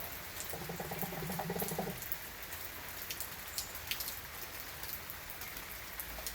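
Steady rain falling, with individual raindrops ticking sharply on a hard surface. About half a second in, a low pulsing buzz or rattle runs for over a second and stops.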